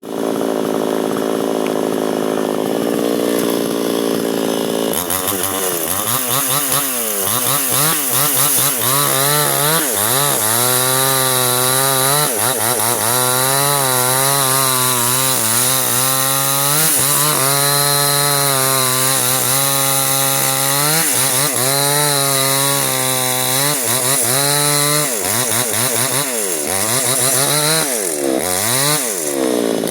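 Chainsaw cutting into a coconut palm trunk. It runs at a steady pitch for the first few seconds, then from about five seconds in the engine note dips and recovers over and over as the chain bites into the wood under load.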